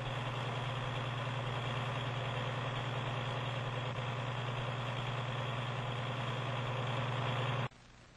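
Steady low machine hum with hiss over it, which cuts off abruptly shortly before the end.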